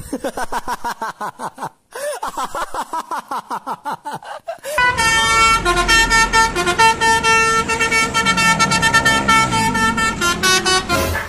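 Multi-tone 'telolet' Basuri bus horn playing: rapid warbling toots that bend up and down in pitch, with a short break about two seconds in, then a melodic run of held horn notes.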